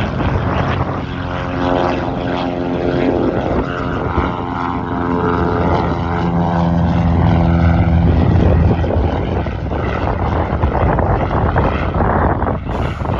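Single-engine light propeller plane climbing out after takeoff, its engine and propeller giving a steady drone that grows louder as it passes and fades after about eight seconds. Wind rumbles on the microphone throughout.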